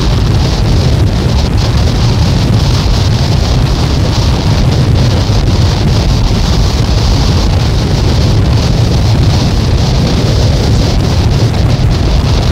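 Noise music from a cassette album: a loud, dense, unchanging wall of noise, a low rumbling roar under a band of hiss, with no beat or melody.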